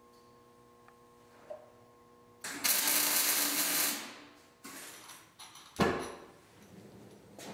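MIG welder arc crackling as a weld is laid on steel plate, one burst lasting about a second and a half, then a couple of shorter, weaker bursts.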